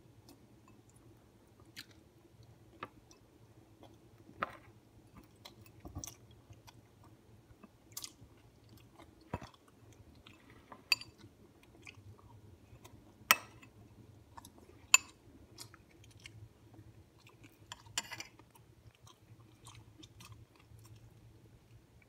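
Quiet room with a steady low hum, broken by scattered short clicks and taps every second or two; the two loudest come about 13 and 15 seconds in.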